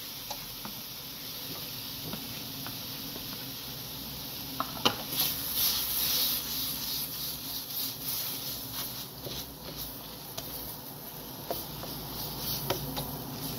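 Vegetables sizzling in a hot pan, then a spatula scraping and clicking against the pan as they are stirred, starting about four and a half seconds in.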